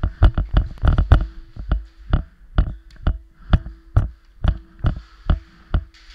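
Action-camera mount knocking and rattling with each footstep as the wearer jogs. There are about two thumps a second, coming quicker during the first second.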